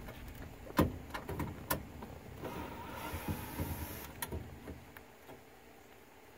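Cordless drill-driver whirring for about a second and a half as it backs out the mounting screws of an old factory door speaker, with sharp clicks and knocks of the bit and the speaker being handled around it. The loudest is a single knock about a second in.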